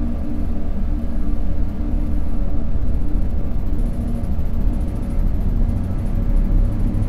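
City street traffic: a deep, steady rumble of vehicle engines running close by.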